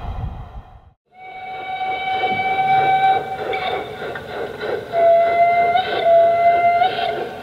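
Garden-scale model steam locomotive's sound unit blowing its whistle: one long steady blast of about three seconds, then a second, slightly lower blast near the end. About a second in, a low rumble of the running train drops out just before the whistle starts.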